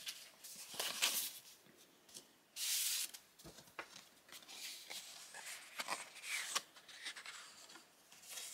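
Paper rustling and scraping as a paper envelope is opened and a greeting card is slid out and unfolded, with a louder half-second rasp about two and a half seconds in.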